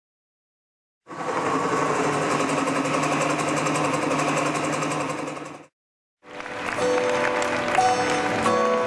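Music: after about a second of silence, a dense, rapidly pulsing buzzy passage that cuts off suddenly, then after a short gap music with held melodic notes begins.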